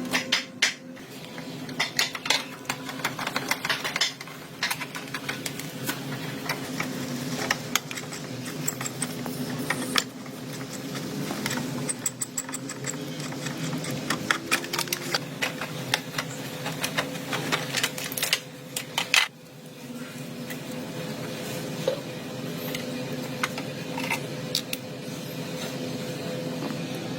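Repeated metallic clinks, taps and scrapes of hand-tool work on metal parts, over a steady mechanical hum.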